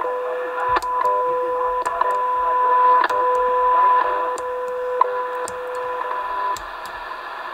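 WWV time-signal broadcast on 10 MHz, heard through a Yaesu FT-991 transceiver: a steady tone broken by a tick each second, over receiver hiss. About six and a half seconds in the tone drops out and only the hiss and ticks remain.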